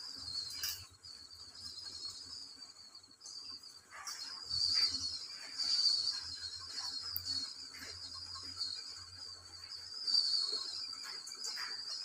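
Steady high-pitched chirring of insects, with a few soft scrapes and knocks as a steel bowl is emptied into a steel pan.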